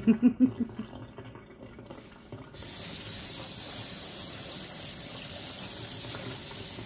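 Kitchen faucet running onto diced potatoes in a stainless colander held in the sink: a steady hiss of water that starts about two and a half seconds in. A few short voice sounds come right at the start.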